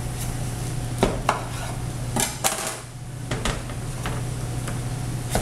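Kitchen knife cutting into a butternut squash, the blade knocking sharply on the cutting surface about six times at irregular intervals. The cook says the knife needs sharpening.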